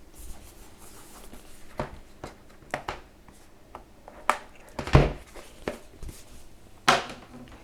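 Hands handling and opening a product box: scattered light taps and rustles, with a louder knock about five seconds in and another sharp one near the end.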